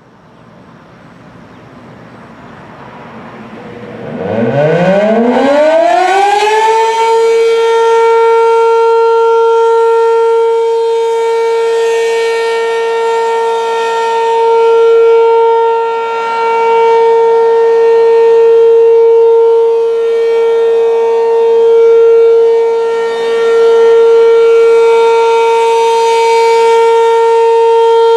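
ASC RM-127 mechanical outdoor warning siren sounding the steady Alert signal for its monthly test. The motor spins up with a rising whoosh, then about four seconds in the tone glides up and settles on one steady pitch, which it holds while swelling and dipping slightly in loudness.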